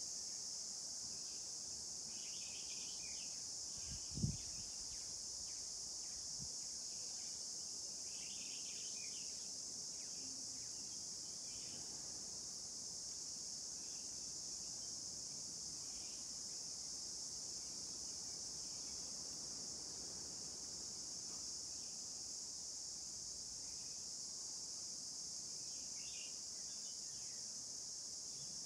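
A steady, high insect chorus, crickets by their sound, carries on without a break, with a few short bird chirps now and then and one dull thump about four seconds in.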